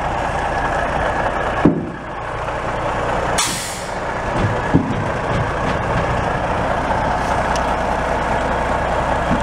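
Caterpillar 3406 inline-six diesel of a 1986 Freightliner dump truck running steadily while the dump bed comes down. A sharp knock comes just under two seconds in, a short burst of air hissing about three and a half seconds in, and another knock near five seconds.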